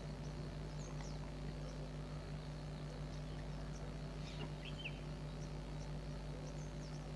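Faint, scattered bird chirps, a few short high calls, over a low steady hum.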